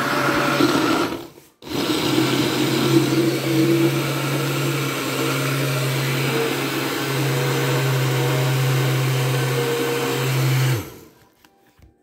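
Countertop blender running, blending a pink fruit smoothie: a loud, steady motor hum with churning. It cuts out for a moment about a second and a half in, starts again, and shuts off about eleven seconds in.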